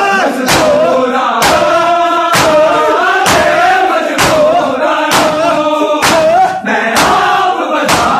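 A crowd of men beating their chests in unison (matam), a sharp slap about once a second, over a loud male chanted mourning lament (noha).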